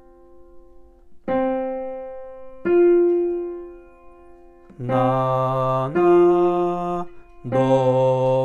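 Piano sounding a perfect fourth, do then fa (C and F), one note after the other. Then a man's voice sings the interval back twice on 'na na', lower note first, as an ear-training exercise.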